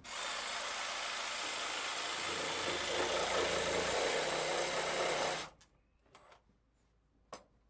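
Electric saw running steadily for about five and a half seconds as it cuts away part of a wooden roof beam, then stopping abruptly. A few light knocks and one sharp click follow near the end.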